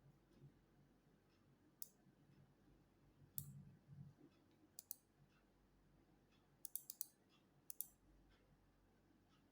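Faint, sharp clicks of a computer mouse, some single and some in quick clusters, over quiet room tone with a low hum.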